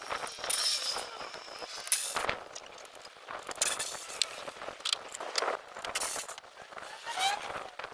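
Scattered clicks, clinks and scrapes of hand tools on car parts as the washer fluid bottle is worked loose from the front of the car, with a brief squeak near the end.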